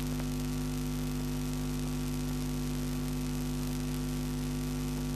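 Steady electrical mains hum, several low tones held evenly over a light hiss, in the film's soundtrack.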